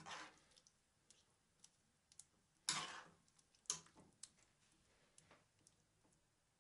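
Metal spoon stirring chicken in tomato sauce in a nonstick frying pan: a few faint scrapes and clicks of the spoon against the pan, the loudest about two and a half seconds in.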